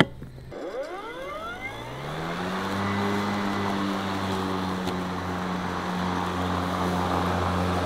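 EGO 56V Select Cut cordless lawn mower: after a click, the electric motor and multi-blade deck spin up, the pitch rising for about two seconds, then run at a steady hum with a hiss as the mower cuts grass at its 64 mm height setting.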